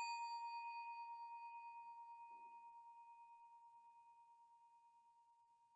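The ring of a struck desk bell dying away: one clear tone with a fainter higher overtone, fading with a slight wavering and gone about three seconds in.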